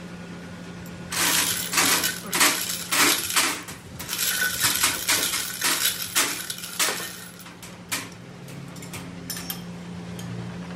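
Small metal pieces clinking and rattling again and again for several seconds, then a few fainter ticks near the end, over a steady low hum.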